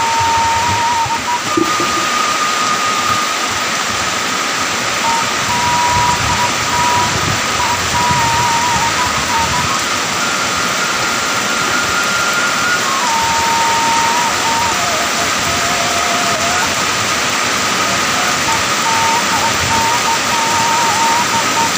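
Heavy rain pouring steadily onto paving, a loud, even hiss of falling water. A faint high tone sits over it, holding one pitch for a few seconds and then jumping to another.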